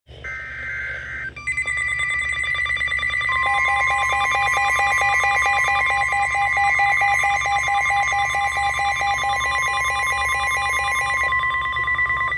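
Emergency Alert System alert tones: a brief warbling data burst, then a loud, rapidly pulsing two-tone alarm that rings steadily for about ten seconds and cuts off just before the spoken warning.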